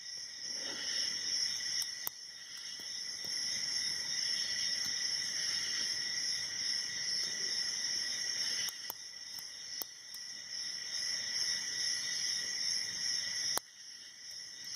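Hook pick and tension wrench working the pin stack of a Yale Y110C/40 brass padlock: faint scraping with a few sharp clicks, over a steady high-pitched ringing in the background.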